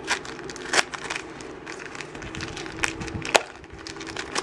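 Plastic wrapping of a Shopkins blind-basket toy being handled and opened: a few sharp crackles and clicks of plastic, the loudest about three and a half seconds in, with a crinkly foil bag being pulled out.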